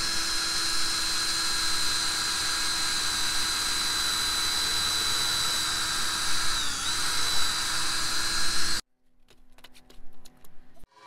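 DeWalt 18V cordless drill running steadily as it bores a pilot hole into a pressure-treated wooden post. Its motor whine dips briefly in pitch under load about two-thirds through, then cuts off suddenly, followed by a few faint clicks.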